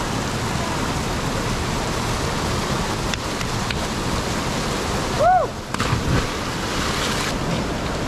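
Steady rush of a mountain river and small waterfall. About five seconds in, a brief rising-then-falling whoop stands out, followed soon after by a short low thump.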